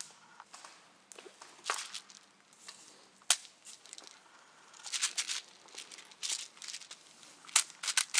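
Footsteps crunching irregularly through dry leaf litter and twigs on a forest floor, with a sharp crack about three seconds in.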